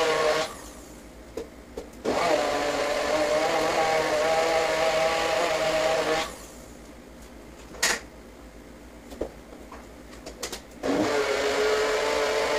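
Countertop blender pulsed on and off while chopping cucumber pieces. The motor runs, cuts out about half a second in, starts again at about two seconds and cuts out near six seconds, then spins back up with a rising whine near the end. A few small clicks and knocks come during the pauses.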